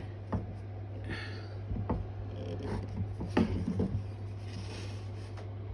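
Quiet workshop room tone: a steady low hum with a few faint taps and soft rubbing, the sharpest tap about three and a half seconds in.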